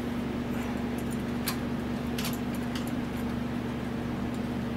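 A few faint metal clicks from an open-end wrench working a carburetor mounting bolt, over a steady background hum.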